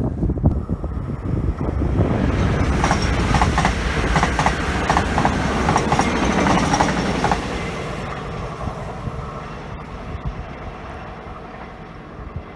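A train running past on the track, its wheels clicking over the rail joints in quick runs of knocks for several seconds. It then fades away as it recedes.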